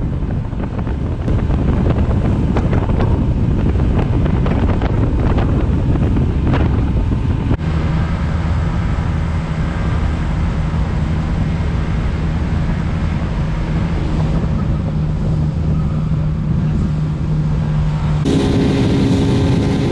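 Motorboat under way at speed: outboard engine drone mixed with wind buffeting the microphone and water rushing past the hull. About a third of the way in the sound cuts to a steadier, lower engine hum, and near the end it cuts again to a higher-pitched engine tone.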